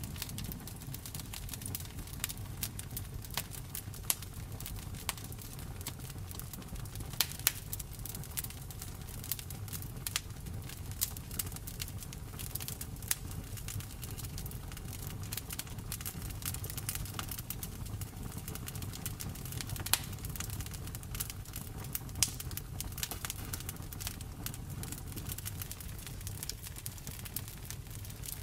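Wood campfire burning, crackling and popping irregularly over a steady low rumble.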